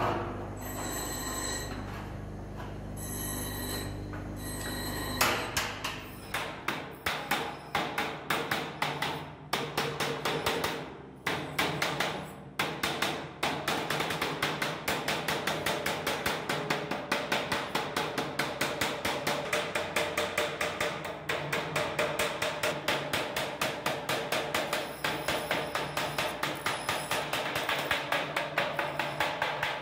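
A steady hum at first. About five seconds in, hand hammering starts on the metal body of a washing machine being built, with uneven blows at first and then a quick, steady rhythm of about four blows a second.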